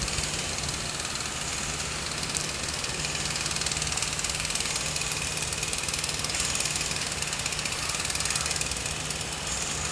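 Steady low mechanical hum under an even hiss that holds throughout, with no distinct events.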